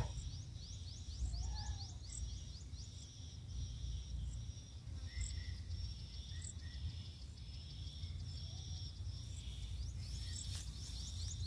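Insects chirping in a steady high-pitched trill, broken by quick, repeated short rising chirps, over a low, even outdoor rumble.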